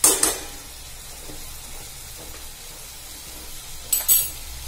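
Chicken and onion-tomato masala frying in a kadhai, with a steady low sizzle. A metal spoon knocks against the pan at the start as black pepper powder is tipped in, and a wooden spatula scrapes the pan about four seconds in.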